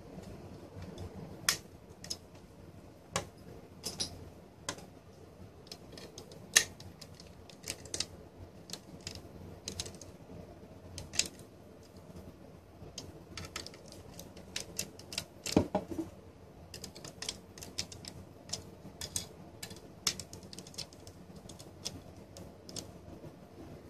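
Irregular clicks and taps of a screwdriver and the metal chassis and circuit board of a Trendnet TEG-S80g network switch being handled during reassembly, with a few sharper clicks standing out.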